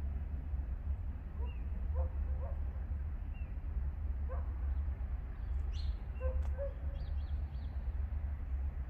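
A dog barking faintly a handful of times, short separate barks spread across several seconds, over a steady low rumble. A few faint high chirps, like small birds, sound around the middle.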